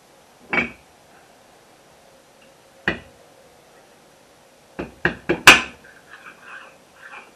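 Steel-on-steel knocks and clinks as a lathe chuck's scroll is worked down into the chuck body. There is a single knock about half a second in and another near three seconds, then a quick run of four or five knocks around five seconds, the last the loudest, followed by fainter handling noise.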